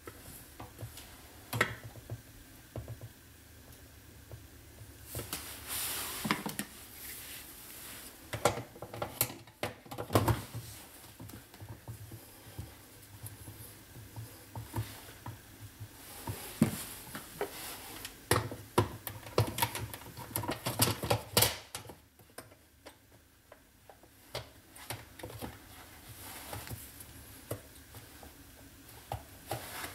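Plastic dishwasher parts, the filter assembly and shaft, being handled and fitted back onto the sump: irregular clicks, knocks and rattles, busiest in two stretches a few seconds in and past the middle.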